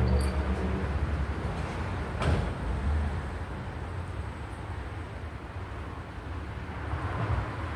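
A boat loader's electric winch motor whirs and stops just after the start, then a small dinghy's hull slides along the loader rack into a pickup truck bed with a steady scraping rumble, a knock about two seconds in, and louder scraping again near the end.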